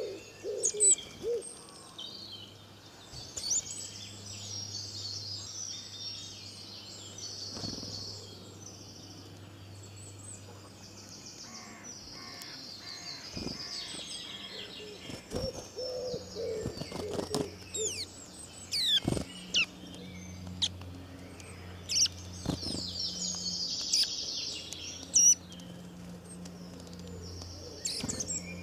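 Birds chirping and singing, with low cooing calls about a second in and again around sixteen seconds, over a steady low hum and a few sharp clicks.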